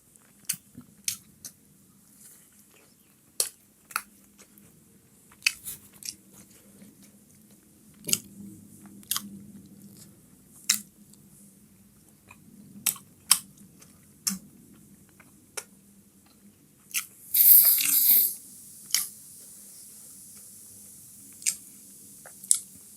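A person chewing chicken momos with wet mouth clicks and smacks every second or so. About three quarters of the way through there is one louder rush of noise lasting about a second.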